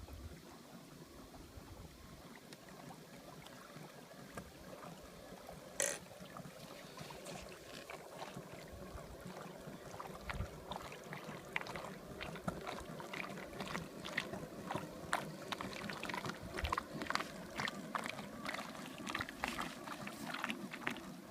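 Water lapping and splashing in quick, irregular small slaps that come more often from about six seconds in, with one sharp click about six seconds in.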